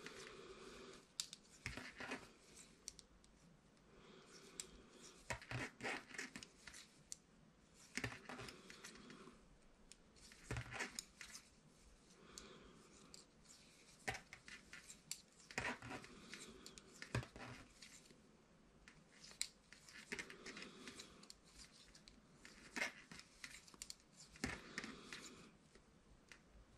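Knitting needles clicking and scraping against each other as stitches are worked, with the rustle of wool yarn. The sound comes in short, faint bunches every second or two, one for each stitch.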